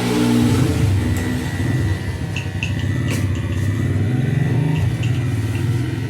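A motor vehicle engine running close by, its pitch rising and falling as it revs. It swells in at the start and eases off near the end.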